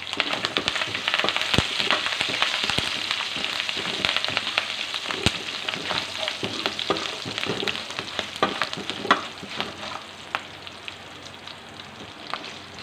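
Curry leaves sputtering and crackling in hot ghee in an aluminium kadai, with the tempering of cashews, pepper and cumin being stirred and a few knocks of the spoon on the pan. The crackle is fiercest in the first seconds and dies down near the end as the leaves fry.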